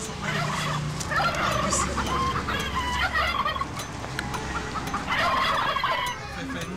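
Domestic fowl calling over and over in busy clusters, with a low steady hum underneath.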